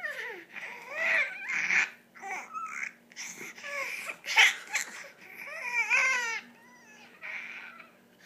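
A five-month-old baby girl making a string of high, wavering squeals and whiny babbles, several short calls with pauses between them, a sound likened to a dying cat.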